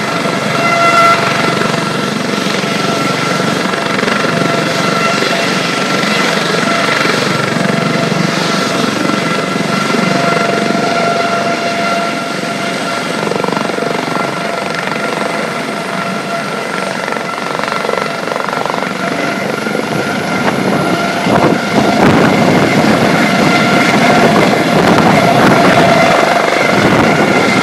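Eurocopter AS 365 N2 Dauphin helicopter with its twin Turbomeca Arriel turboshaft engines running, rotors turning, with a steady high whine over the rotor noise. It grows louder about three quarters of the way through as the helicopter lifts off.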